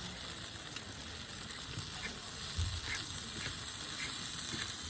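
Food sizzling in a pan over a campfire: a steady hiss with scattered faint pops.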